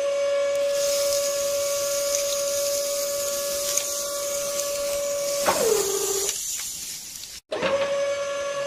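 Small electric gear motor whining steadily as it tilts a miniature tipper trolley, with a hiss of sand and small stones sliding out of the bed. About five and a half seconds in the motor slows, falling in pitch, and stops; it starts up again with the same whine near the end as the bed begins to lower.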